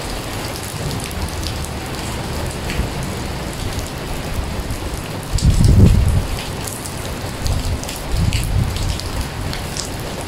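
Heavy rain falling into standing water on a paved surface, a steady hiss of splashing drops with many small ticks. A low rumble swells about halfway through and comes back in shorter bursts near the end.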